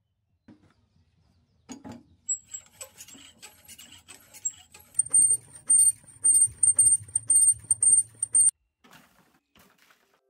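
A few clicks from handling a hose fitting. Then water sputters from a handheld hose spray nozzle with a thin high whistle, building into rapid spurts about three a second that cut off suddenly.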